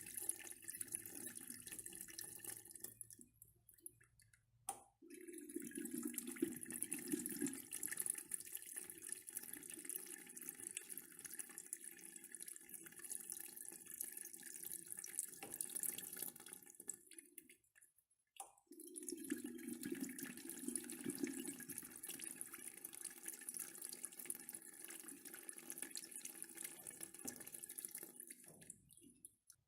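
Urinal flushing: water rushing through the bowl, dying away twice and starting again each time, about 5 seconds in and again near 19 seconds.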